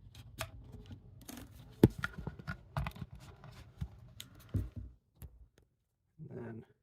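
Hands handling a sound machine's power cord and plug: scattered plastic clicks and rustling, with one sharp click about two seconds in.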